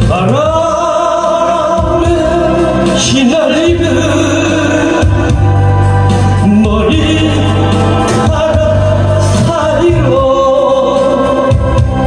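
A man singing a Korean trot song into a microphone over an amplified backing track with a steady bass line, holding long notes for several seconds.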